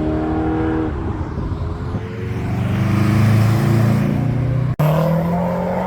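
Muscle car engine revving. It is held at high revs, drops off about a second in, then climbs again to its loudest about three seconds in. A brief sudden dropout comes near the end, after which the engine runs on at steady revs.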